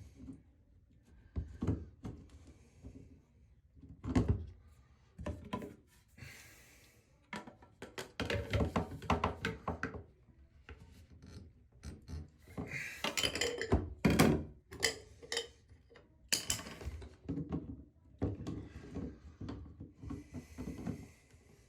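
Irregular knocks, taps and scraping from hand work on a shower floor drain assembly, with denser bouts of rubbing and clatter in the middle.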